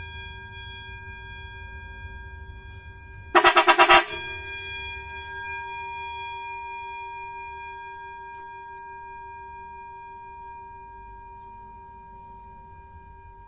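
A Vatican bell, an electric bell-type car horn, ringing out and slowly dying away. About three seconds in, a quick run of about six loud strikes sets it ringing again, and the ring fades gradually over the following ten seconds.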